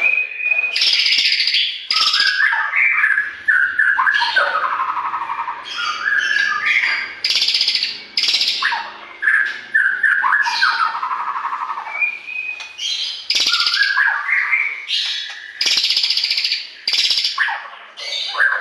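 White-rumped shama singing without pause, mixing clear whistled phrases with harsh, scratchy notes.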